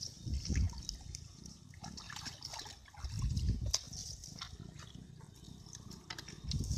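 Water splashing and trickling, with scattered small clicks and low sloshing swells about half a second in and again about three and a half seconds in.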